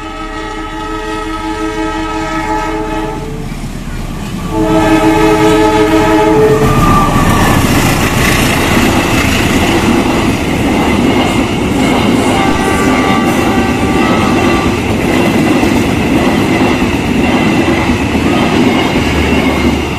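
Diesel-electric locomotive CC 203 horn sounding a chord twice: a blast of about three seconds, then after a short gap a second of about two seconds. The passenger train's carriages then run past at speed, a loud steady rush and clatter of wheels on the rails.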